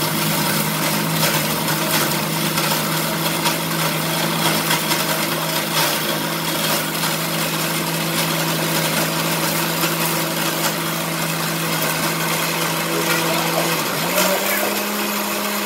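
Electric mixer grinder running with whole spices in its small steel jar: a loud, steady motor whine. About 14 seconds in, the pitch steps up as the speed knob is turned higher.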